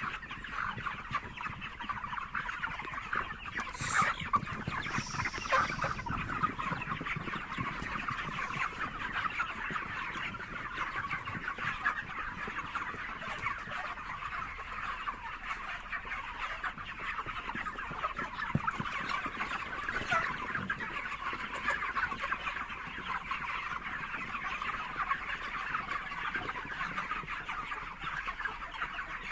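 A large flock of poultry-farm chickens calling all at once, a dense, unbroken chatter of many overlapping cheeps and clucks. A couple of brief, sharper sounds stand out about four and five and a half seconds in.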